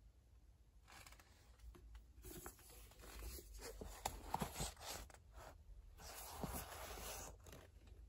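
Faint, irregular rustling and small clicks of a book being handled: slid from a bookshop shelf and its pages opened.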